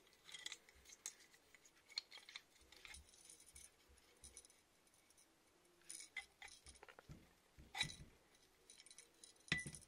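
Faint, scattered clicks and clinks of hand tools and small parts being worked at an airsoft electric gun's pistol grip and motor during disassembly, with two sharper clicks near the end.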